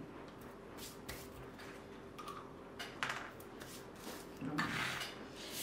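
Faint handling sounds on a craft table: a few light taps and clicks, then a short rustle of paper about four and a half seconds in.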